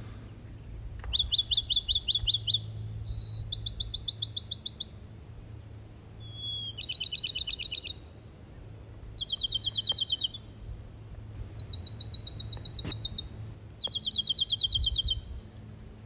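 Bachman's sparrow singing six songs in a row. Each song is a short clear whistle followed by a fast, even trill, and the pitch changes from song to song.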